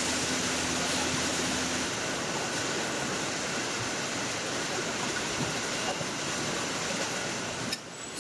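Steady hiss and din of car assembly line machinery, with a steady hum that stops about two seconds in. The noise drops suddenly near the end.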